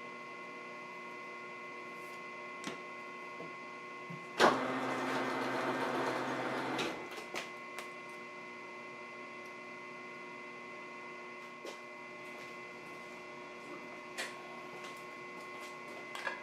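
Machine-tool motor running with a steady hum. About four and a half seconds in, louder rough cutting noise lasts for about two and a half seconds, with a few clicks scattered through the rest.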